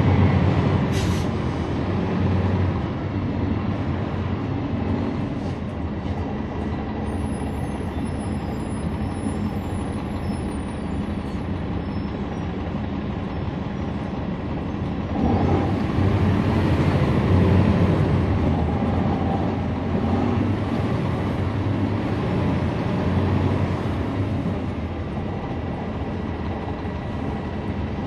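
Interior sound of a 2011 NABI 40-SFW transit bus with a Cummins ISL9 diesel engine, running steadily under way. There is a brief high hiss about a second in, and about fifteen seconds in the engine gets louder and its pitch rises and falls as the bus accelerates, then it settles back to a steady drone.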